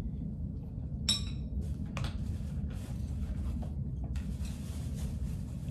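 Tableware clinking as people eat with chopsticks from bowls and containers, with one ringing clink about a second in and a sharper click a second later. A steady low hum runs underneath, and a steady hiss starts about two-thirds of the way through.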